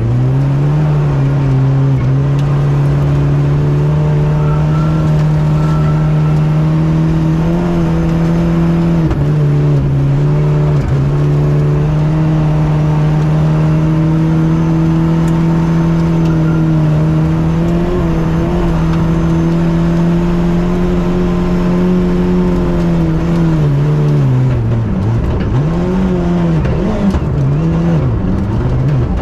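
Rally car engine heard from inside the cockpit, held at high revs at a nearly steady pitch with small rises now and then. About five seconds before the end the revs drop and swing up and down several times, then settle back.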